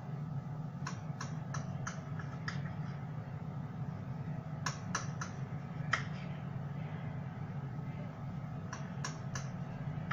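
Chef's knife sawing through a baked sesame-and-raisin fekkas log, its crisp crust crackling in three short runs of sharp clicks: about a second in, around the middle, and near the end. A steady low hum sits underneath.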